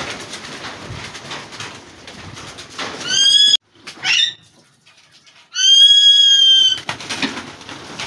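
Alexandrine parakeets in an aviary: wings flapping and rustling, with a loud clear call about three seconds in, a brief call just after, and a long held call of over a second at about the middle.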